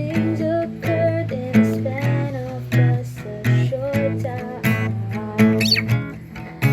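Acoustic guitar strummed in a steady rhythm, with a sung melody held and gliding between notes over it.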